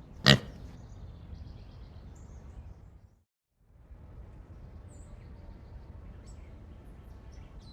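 Outdoor ambience: a steady low rumble with faint, scattered bird chirps. A short, sharp loud sound comes just after the start, and the sound drops out briefly about three seconds in.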